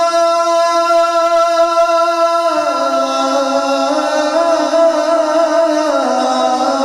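A male naat reciter singing into a microphone, holding long drawn-out notes that step down in pitch twice.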